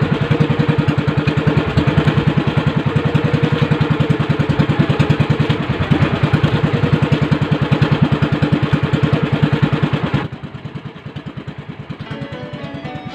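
Small engine running steadily at a constant speed, its firing pulses closely and evenly spaced. About ten seconds in it drops off abruptly to a much quieter level.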